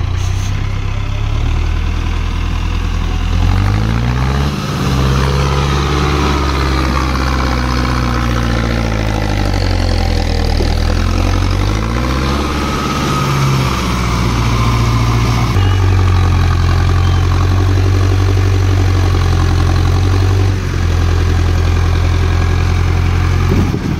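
Farm tractor's diesel engine running hard under heavy load, as when straining to climb out of a ditch with its front wheels lifted. The revs rise and fall a couple of times, then hold steady at a higher speed.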